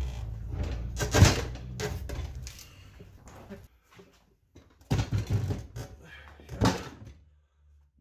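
Steel tire-changer bar and tire spoon knocking, clanking and scraping against the wheel and tire as a new motorcycle tire's bead is levered over the rim. Several sharp clanks, the loudest about a second in, with a quieter stretch in the middle.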